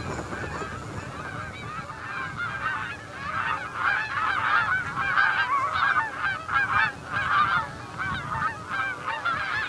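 A large flock of wild geese honking as it flies over, many calls overlapping, louder from about three seconds in.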